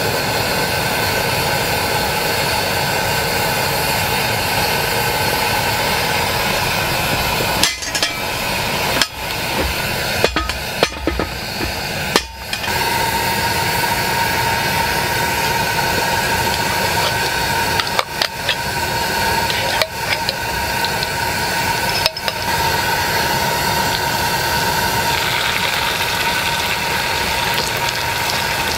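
Steady roar of a camp gas burner, broken by a few sharp clinks of glass and metal against a stainless steel pot as a bottle of sauce is poured in.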